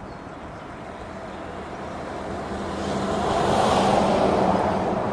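DD16 diesel-hydraulic shunting locomotive running with a steady low engine note, growing clearly louder about three seconds in and easing slightly near the end.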